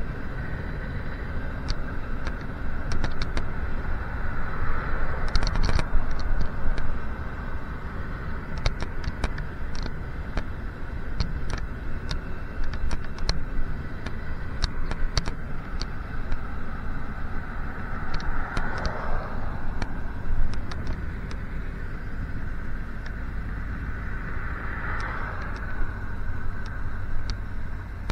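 Traffic and road noise heard from a moving bicycle: a steady low rumble of wind and tyres with many short clicks and rattles, and motor vehicles passing about five, nineteen and twenty-five seconds in.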